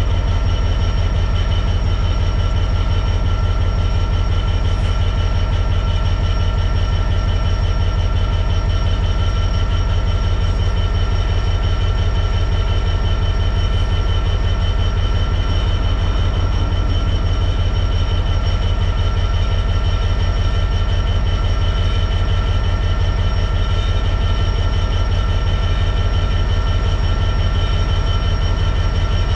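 Diesel locomotive engine idling steadily, a fast low beat with a steady high-pitched whine over it.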